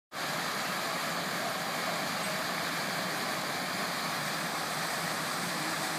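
Ornamental fountain's water jets and stepped cascades splashing, a steady rushing of falling water.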